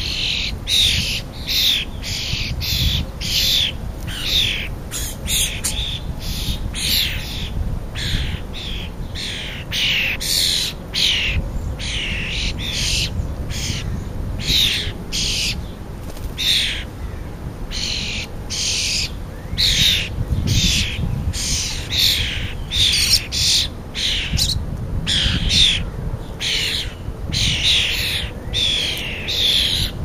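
Juvenile European starlings giving harsh, raspy begging calls, each short call falling a little in pitch, repeated about twice a second with brief pauses.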